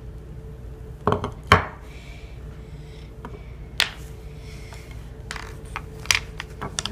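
Puzzle pieces being handled and set down, a few sharp clicks and knocks about a second in, near four seconds and near six seconds, then a quicker run of clicks near the end, over a steady low hum.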